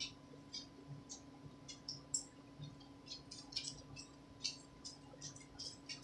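Faint, quick high-pitched squeaks and ticks, a few each second, from a small pet in a wire crate, over a steady low hum.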